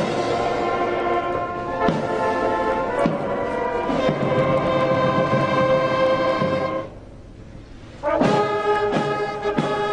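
Military brass band playing ceremonial music, which the uploader calls out of tune. Sustained brass chords break off for about a second a little past the middle, then come back as a run of sharp accented chords.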